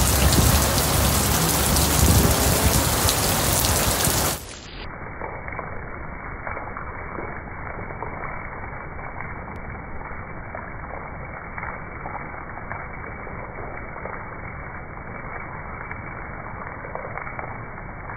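Heavy rain pouring down, drops splashing into standing water on the street. About four seconds in, the sound suddenly drops in level and turns duller, then carries on as a steady hiss of rain.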